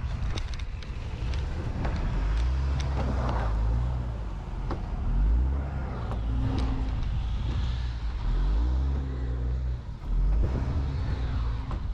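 Car engine revving up and down again and again, its pitch rising and falling every second or two: a car stuck in deep snow trying to pull free.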